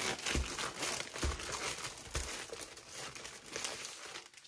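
Crinkly packaging crackling and tearing as it is handled and pulled open by hand, after being slit; the noise dies away near the end.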